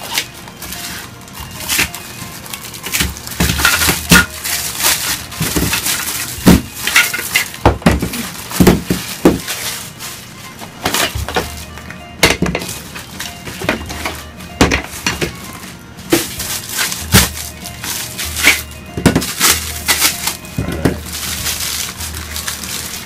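Irregular knocks, clatters and rustling as flat-pack chair parts and packaging are pulled out of a cardboard box and handled.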